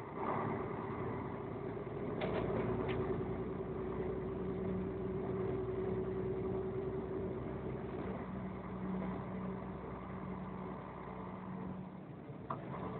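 Engine and road noise of a moving vehicle heard from inside the cab: a steady hum that grows louder just after the start, with a few faint clicks about two seconds in.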